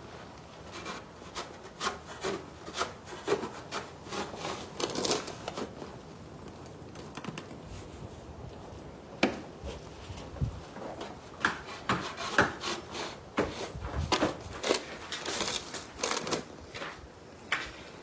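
Irregular scraping and crunching of a shovel working into packed snow and ice.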